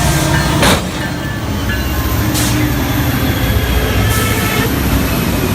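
Train running close by: a loud, steady low rumble with a sharp crack about two-thirds of a second in and fainter knocks later.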